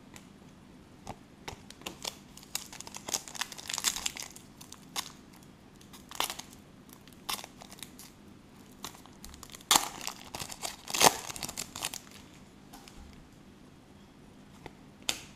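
Foil wrapper of a Panini Select soccer trading-card pack being torn open and crinkled by hand: irregular crackles in clusters, loudest about ten to eleven seconds in.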